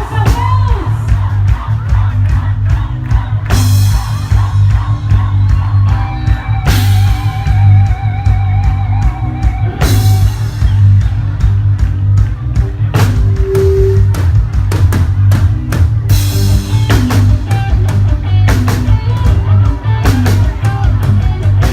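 Gospel band playing with drum kit, bass and guitar, including several cymbal crashes over a steady heavy bass.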